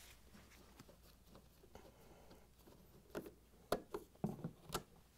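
Faint hand-tool work on a refrigerator's rear access cover: a few light clicks and taps from a nut driver and its screws, mostly in the second half.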